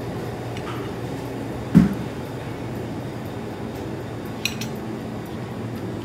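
Steady café room noise, with a dull thump about two seconds in and a quick clink of tableware about four and a half seconds in.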